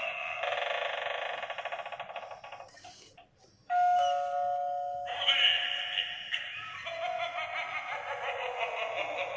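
Gemmy gold eyeball novelty doorbell playing through its small, tinny speaker. One recorded clip fades out, then about four seconds in a two-note ding-dong chime sounds, stepping from a higher note to a lower one. More of its recorded sounds follow.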